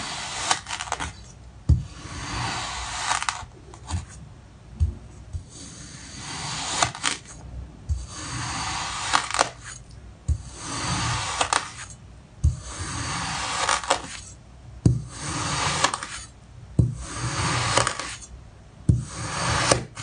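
A blade slicing down through a block of kinetic sand again and again, about ten cuts one every two seconds or so: each a hiss of sand parting as the blade passes, ending in a sharp tap.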